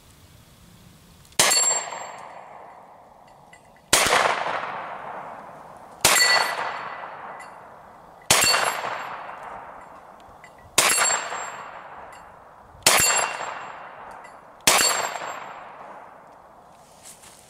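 Seven shots from a Hi-Point 9mm carbine firing Federal low-recoil hollow-point rounds, fired one at a time about every two seconds. Each shot trails off in a long ringing echo.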